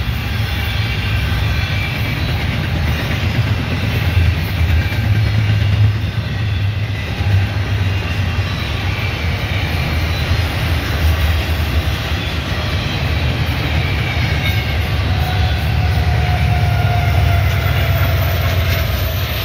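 Double-stack intermodal train's well cars rolling past: steady wheel-on-rail noise with faint high squeals. Near the end the train's two rear Union Pacific distributed-power diesel locomotives go by.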